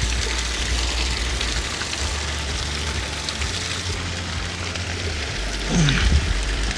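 Water pouring from a hose or pipe and splashing onto wet rocks, a steady spattering hiss. Near the end, a short low sound falling in pitch and a few knocks.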